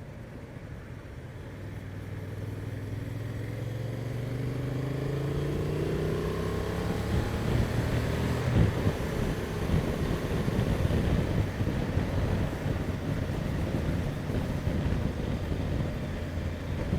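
Honda Transalp XL750's parallel-twin engine pulling away under acceleration, its note rising steadily for the first several seconds. Then rising wind rush and buffeting on the helmet microphone take over as road speed builds.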